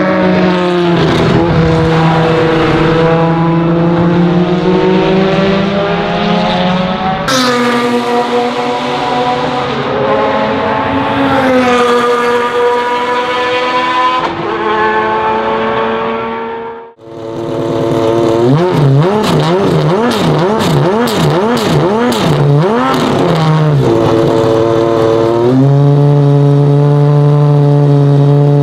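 Ferrari 550 GTS Maranello GT1's 65-degree 6-litre V12 running hard on track. Its note climbs and drops back in steps as it shifts up through the gears. Past the middle the sound briefly drops away, then comes back with several quick rises and falls in pitch, and the engine holds a high, steady note near the end.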